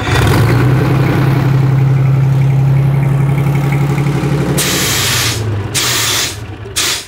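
Detroit Diesel 6V71 two-stroke V6 diesel running at part throttle after starting. About four and a half seconds in, a CO2 fire extinguisher hisses into its intake in three loud blasts, and the engine dies, starved of air.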